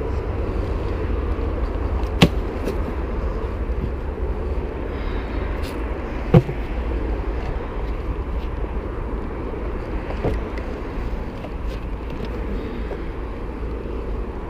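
Steady rumble of a baby stroller's wheels rolling over pavement, with a few sharp knocks along the way.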